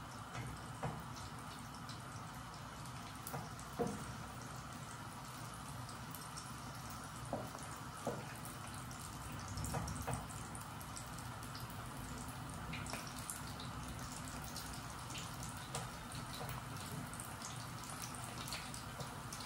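Maggi instant noodles simmering and bubbling in a frying pan on a gas stove, with a few short clicks of the utensils tapping the pan.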